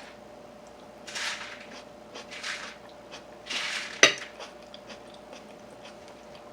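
Cookware and utensils being handled while cooking: three short scraping swishes, then a sharp metallic clink about four seconds in, over a faint steady hum.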